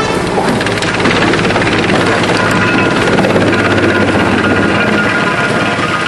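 Drum wood chipper running under load as branches and wood scraps are fed in by conveyor: a loud, steady machine drone with a dense crackle of wood being chipped.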